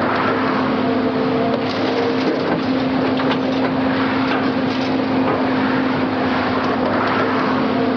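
Heavy excavator's diesel engine running at a steady pitch while its claw breaks up old concrete, with scattered cracks and crunches of the concrete giving way.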